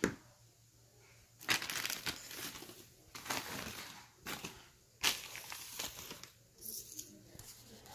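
Clear plastic packaging bag crinkling in about four separate bursts, each up to about a second long, as toy animal figures are handled out of it.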